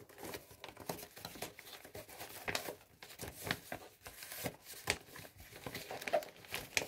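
Plastic bags and a cardboard box being handled and packed, rustling and crinkling with scattered small taps and knocks.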